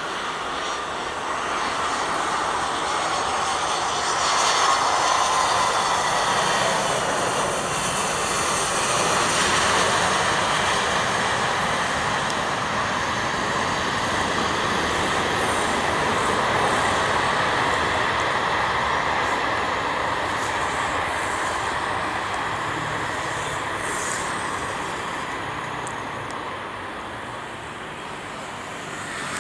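Airbus A320 jet airliner landing: engine noise with a whine swells as it touches down and rolls out along the runway, stays loud for several seconds, then slowly fades as the aircraft slows.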